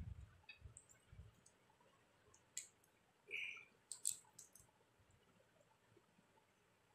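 Faint, sparse clicks and smacks of eating rice by hand from a plate, a little louder about two and a half and four seconds in.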